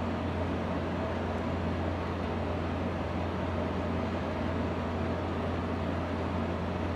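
Steady fan hum with a constant low drone underneath, not changing in level.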